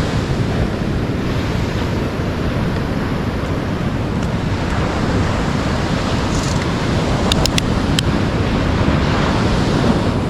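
Ocean surf breaking on the beach with wind buffeting the microphone, a steady rushing noise. A quick cluster of three or four sharp clicks comes about seven seconds in.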